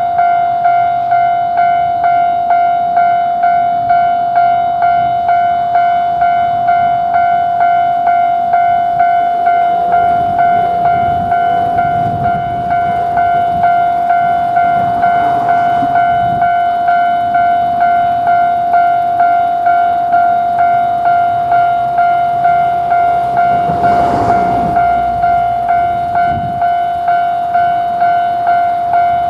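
Japanese railway level-crossing warning bell ringing its 'kan-kan' alarm, a steady ringing tone pulsing about twice a second, with two brief rushing swells of something passing.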